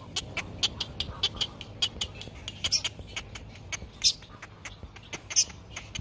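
Great egret chicks begging for food in the nest: a fast, steady run of short, sharp calls, several a second, with three louder calls about a second and a half apart from the middle on.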